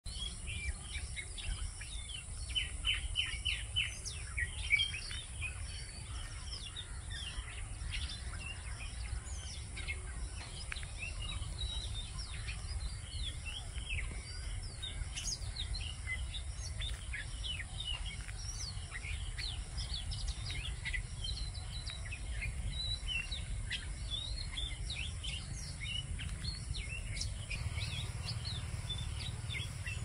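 Oriental magpie-robin singing: a long varied run of short, quick chirping notes, loudest a few seconds in, over a steady high-pitched buzz.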